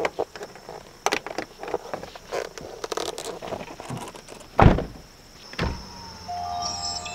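Light knocks and rustles as a wooden cover panel is pressed into a kei truck's door window frame, then the truck's door shutting with a heavy thunk about four and a half seconds in, followed by a lighter thump a second later.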